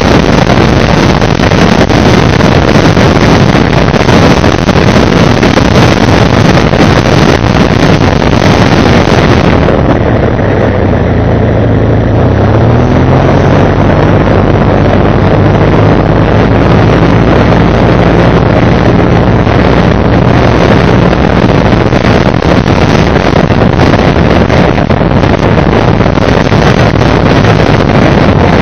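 Loud wind rushing over a motorcycle dashcam's microphone while riding in traffic. About ten seconds in the rush eases and the motorcycle's engine hum comes through, rising in pitch as it picks up speed and then holding steady.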